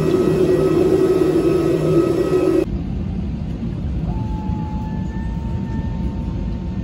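Steady hum of a parked airliner at the boarding door, with a strong low drone. About two and a half seconds in it cuts to the quieter low rumble of the aircraft heard from inside the cabin, where a thin steady whine starts about four seconds in.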